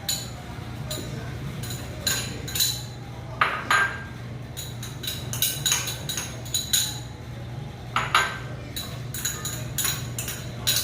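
Dishes and a kitchen utensil clinking and knocking as chopped vegetables are tipped and scraped into a blender jar: about twenty sharp, irregular clinks, each with a short ring.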